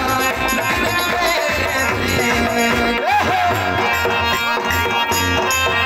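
Live amplified folk song for dancing: a man singing into a microphone over a steady drum beat and sustained backing instruments, all through a loudspeaker system.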